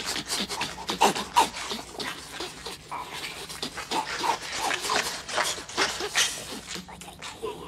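Creature sound effects: a string of short, animal-like squeaks and grunts one after another, some gliding in pitch.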